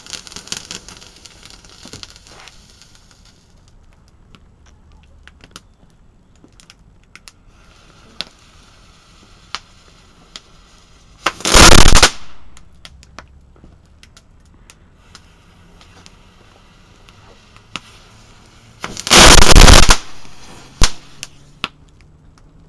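Small ground fireworks going off on concrete: a spark-spraying fountain hisses and dies away in the first few seconds, then scattered crackles, two loud blasts about eight seconds apart, each lasting under a second, and a single sharp crack shortly after the second.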